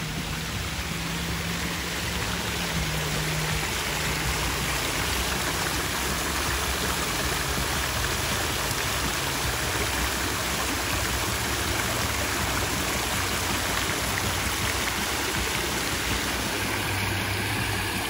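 Park fountain's spray jet splashing steadily back into its round water basin.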